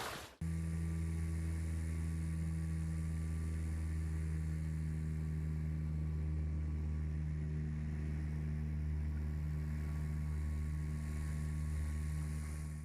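A motor running steadily with a low, even hum, cutting in abruptly about half a second in.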